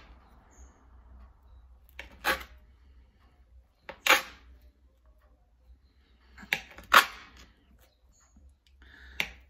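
A large kitchen knife chopping down through a firm slab of chilled tapioca dough and striking a glass cutting board: about six sharp clacks a second or two apart, one pair close together near the middle.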